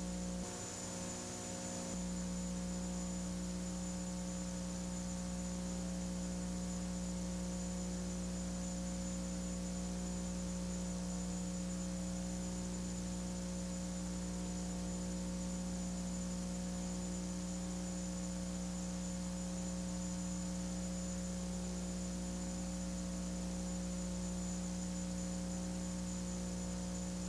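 Steady electrical mains hum made of several unchanging tones, the strongest a low one, over faint hiss.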